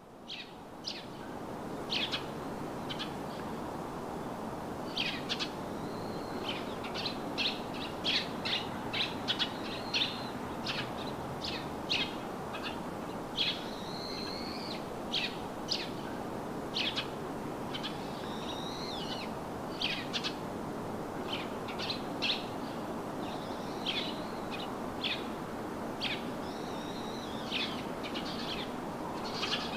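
Wild birds chirping: many short high calls and some repeated arched phrases, over a steady rushing background of outdoor noise. The sound fades in over the first couple of seconds.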